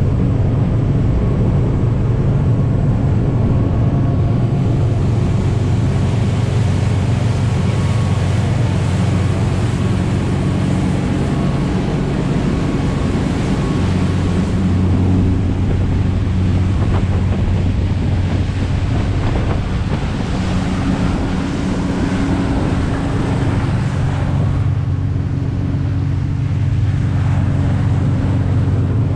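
Motorboat underway: the engine runs with a steady low hum, under the rush of water along the hull and wake and wind buffeting the microphone. The mix of engine and water shifts a few times.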